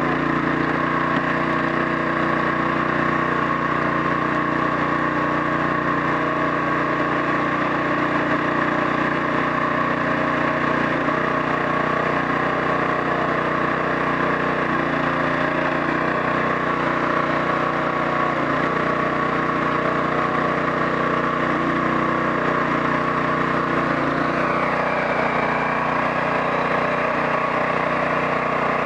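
Hydraulic log splitter's Predator gas engine running steadily under load, driving the hydraulic pump while logs are split.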